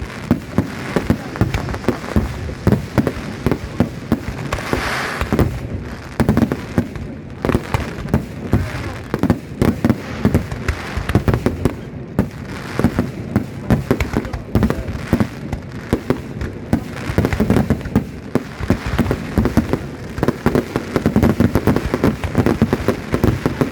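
Fireworks display: a dense, continuous barrage of bangs and crackling from bursting shells, many reports a second.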